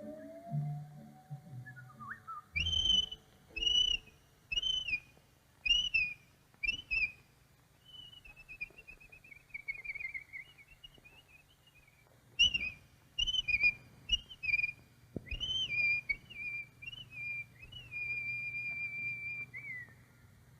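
Whistled cartoon bird chirps: runs of short high whistled notes, a falling warbling trill in the middle, then more chirps and a long held whistle that drops away at the end. A low steady hum from the old optical soundtrack runs underneath.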